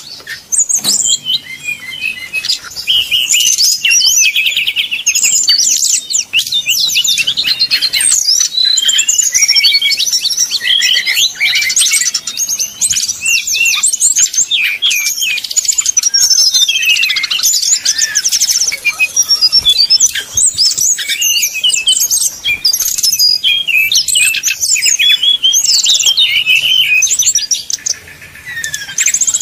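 Brown-chested jungle flycatchers (sikatan rimba dada coklat) singing a fighting song: a fast, unbroken run of high whistles, glides and trills.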